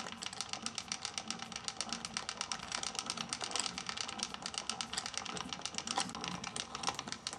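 Victor single-barrel two-spring phonograph motor being wound by hand crank: its ratchet catch clicks rapidly and evenly over the teeth of the winding gear, which let the crank turn only one way, as the two mainsprings are wound up.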